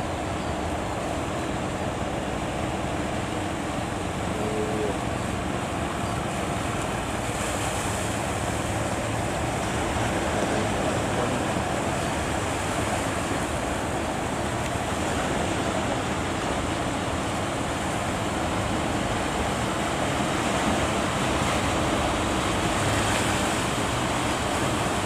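Heavy surf breaking at a river mouth: a steady rushing noise of waves.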